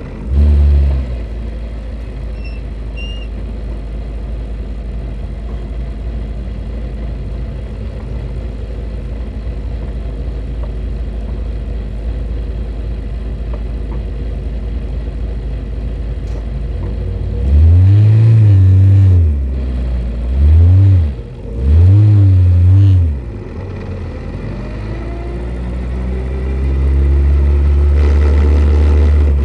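Single-seater race car engine heard on board, running steadily at low revs while the car crawls along, then blipped three times in quick succession, each rev rising and falling back. Near the end the revs build and hold as the car pulls away.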